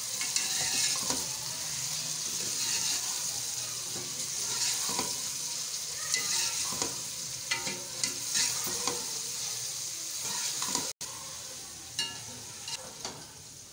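Sliced onions sizzling in hot oil in a metal pot while a metal ladle stirs them, scraping and clicking against the pot now and then; the onions are being fried to light brown. The sound breaks off briefly near the end and is fainter after.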